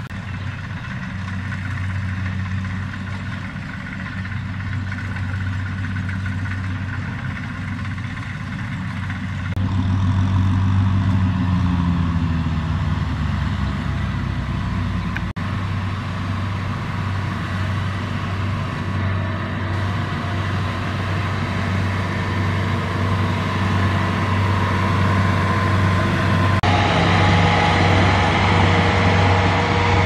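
Diesel engines of a farm tractor and a rice combine harvester running steadily, with a falling engine note partway through. The sound shifts abruptly at a few points.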